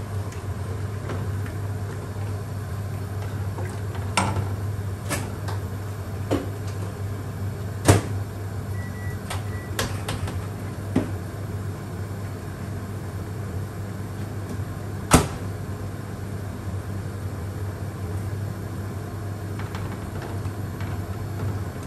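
Kitchen sounds: a steady low hum, with a few sharp knocks and clatters of cookware and utensils being handled, the loudest about halfway through.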